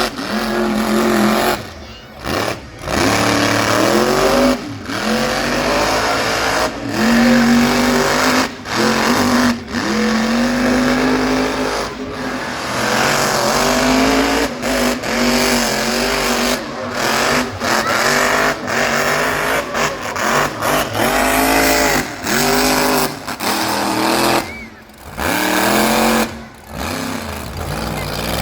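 Monster truck engine revving hard, its pitch rising and falling again and again, with many short, sudden breaks in the sound.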